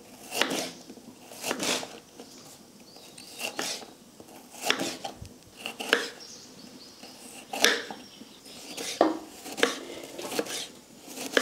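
Kitchen knife slicing raw bitter gourd into thick rounds on a wooden cutting board: sharp, unevenly spaced chops about once a second.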